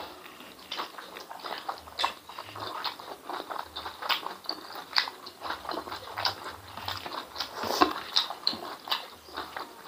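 Close-miked wet chewing and lip-smacking of spiced intestines and rice, with irregular short smacks and clicks of the mouth.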